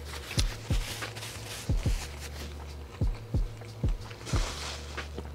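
Background hip-hop beat: a deep kick drum with a falling pitch thumps about twice a second over a held low bass note. Light hissy rustling is heard over it, strongest near the end.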